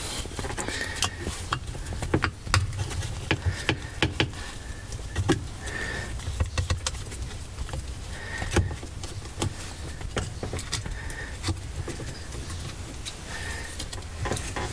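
Phillips screwdriver working at a small screw inside a metal housing: irregular clicks and scrapes of the tip against the screw head and the metal, with short high squeaks every couple of seconds.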